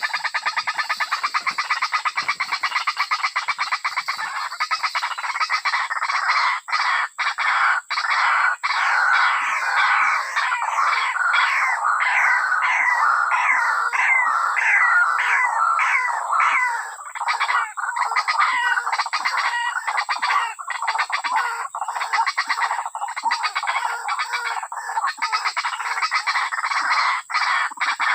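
Birds calling in a rapid, unbroken chatter of short repeated notes, with a steady thin high tone underneath.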